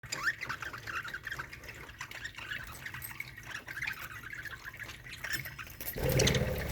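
A colony of budgerigars chattering, a steady stream of many short, overlapping chirps. A louder, lower sound starts near the end.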